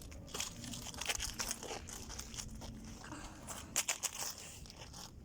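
Campfire of dry branches crackling, with irregular small snaps and pops, a cluster of louder ones near the end.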